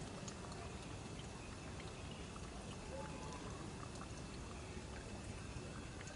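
Steady rushing outdoor background noise with a few faint ticks scattered through it.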